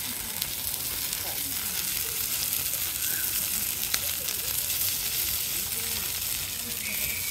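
Meat sizzling on a grill over an open wood fire: a steady hiss with a couple of sharp pops, one about four seconds in.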